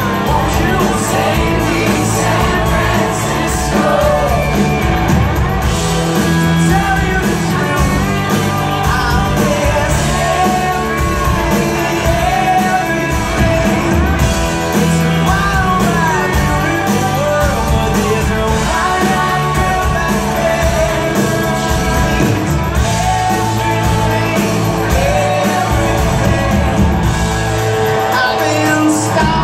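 Live pop-rock band playing a song, with drums, bass and electric guitars under a male lead singer singing, heard from the audience in a large theatre hall.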